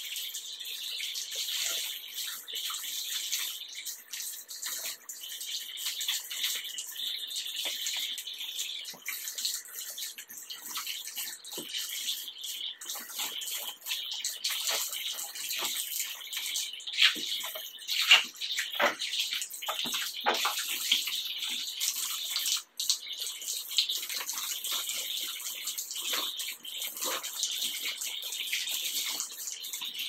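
Bath tap running in a steady stream while hair is rinsed under it by hand, with irregular splashing as the water hits the head and hands. A couple of louder splashes come a little past halfway.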